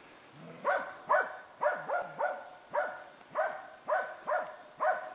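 A dog barking over and over at a moose, about two barks a second, starting just under a second in: a dog baying to hold the moose.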